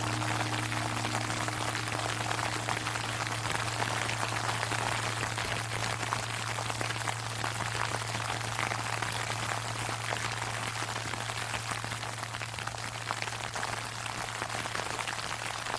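Sleet pattering steadily while the low hum of a large Japanese temple bell (bonshō) lingers and slowly fades after a strike; its higher overtones die away about three to four seconds in, leaving the deep hum.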